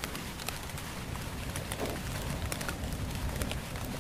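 Steady rain falling, with many individual drops ticking sharply over an even hiss and a low continuous rumble underneath.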